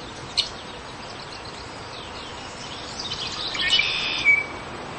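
Birds calling: one short sharp high call about half a second in, then a quick run of high chirps ending in a brief whistle near the end.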